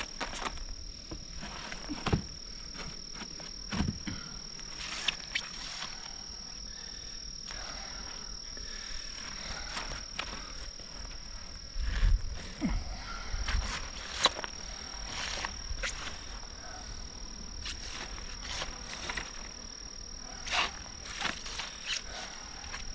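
Night insects such as crickets trilling in one steady, unbroken high tone, with scattered knocks and handling noises and a few low thumps about twelve seconds in.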